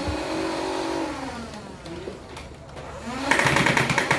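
Battery-powered Nerf Rival Perses blaster. Its flywheel motor whines and winds down in pitch, then spins back up and fires a rapid full-auto burst of foam rounds from a little past three seconds in.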